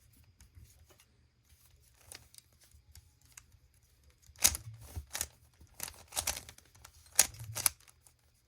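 Plastic Rubik's Cube being turned by hand: irregular clicks and clacks of the layers, sparse at first, then a quicker, louder run of turns from about halfway in.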